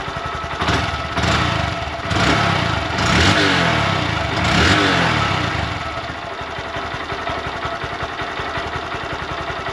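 2020 Honda Grom's 125 cc single-cylinder engine on its stock exhaust, idling and then blipped about five times in the first six seconds before settling back to a steady idle.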